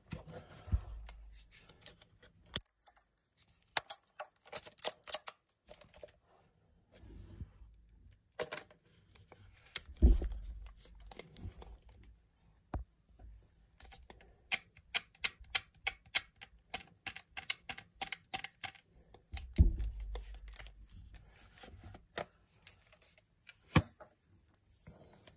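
Handling clicks of a Nikon D70 camera body and a Vivitar Series 1 28-105mm zoom lens being mounted and operated: scattered sharp clicks, a run of quick even clicks about four a second past the middle, and a couple of dull knocks.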